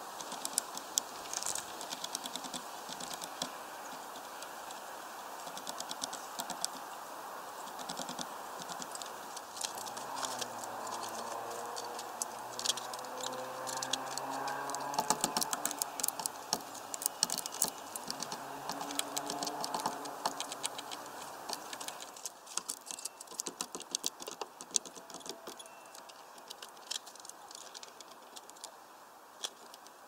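Great tit pecking and tapping at seed in a bird feeder: a long run of small, sharp, irregular taps and clicks, thickest in the middle. A faint low hum comes in under them for a while in the middle and fades again.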